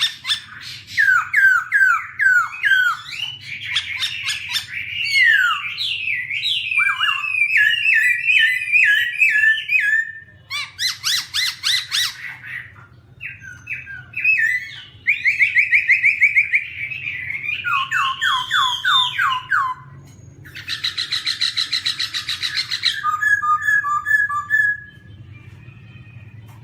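Black-throated laughingthrush singing a long, varied song of whistled phrases, quick trills and fast rattling runs of repeated notes, falling quiet shortly before the end.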